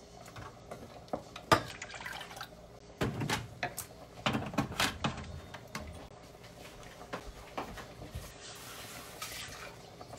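Wooden spoon stirring chunks of mutton in a wet masala in an aluminium pressure-cooker pot: irregular wet squelches and scrapes, heaviest in the first half.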